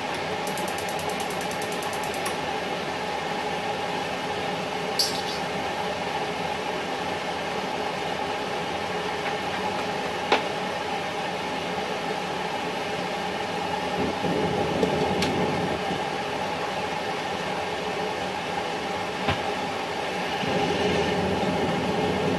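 Kitchen range hood fan running with a steady rushing hum, with a few light clicks and knocks. The noise swells a little about two-thirds of the way through and again near the end.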